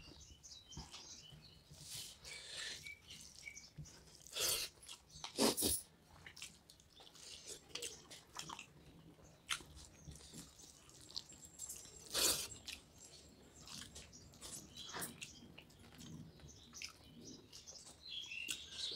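Eating by hand from steel plates: chewing and fingers mixing rice with fish curry, heard as short scattered sounds with a few louder ones.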